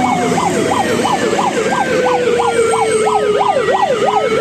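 Ahuja electronic car hooter sounding a fast yelping siren, its pitch rising and falling about three times a second, with a second tone sliding slowly down and then back up beneath it.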